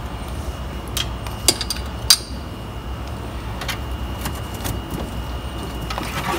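Battery cables and their Anderson connector being handled and fed through a hole in a fiberglass pedicab bucket: scattered light clicks and rattles, the sharpest about one and a half and two seconds in, over a steady low hum.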